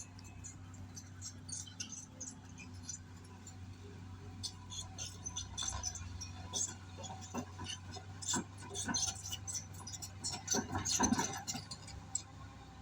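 Excavator at work: a steady low engine hum under irregular light clicks and rattles, which grow busier after a few seconds and are thickest near the end.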